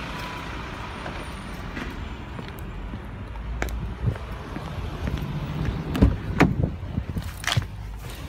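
Outdoor street noise with a steady low rumble of traffic, and several knocks and thumps in the second half.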